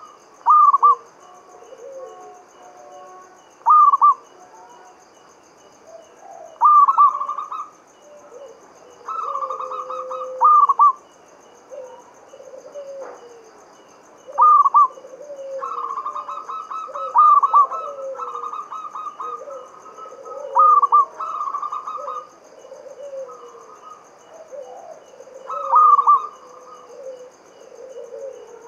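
Zebra dove (perkutut) cooing: short bursts of quick, staccato coos, repeated about every two to four seconds, some phrases longer than others. Softer, lower calls fill the gaps between them.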